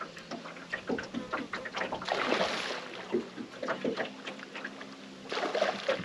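Scattered small clicks and knocks from fishing tackle and movement on an aluminium boat deck as a lure is worked, over a faint steady hum, with a short rush of noise about two seconds in.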